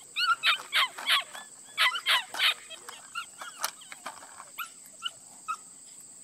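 A puppy barking in a quick string of high-pitched yips, loudest over the first two and a half seconds, then shorter, fainter yaps every half second or so. It is barking at a toy on a line, demanding that it be moved again.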